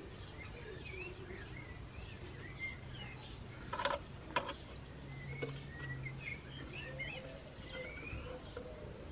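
Small birds chirping and calling over a low steady hum, with two short sharp knocks about four seconds in.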